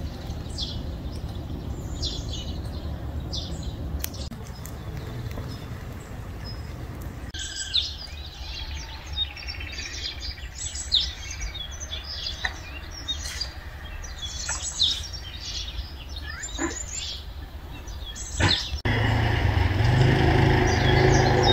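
Small wild birds chirping, many short high calls coming and going, over a steady low outdoor rumble that grows louder near the end.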